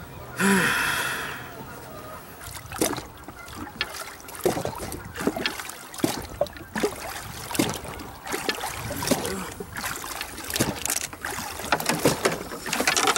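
Water splashing and trickling around a jet ski with a big flathead catfish held alongside, with irregular clicks and knocks from the line being handled against the hull. A brief voice sound, like a grunt, comes about half a second in.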